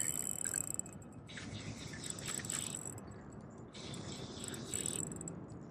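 Daiwa Luvias spinning reel being wound in two spurts of about a second and a half each, a faint fine whirring from the turning reel.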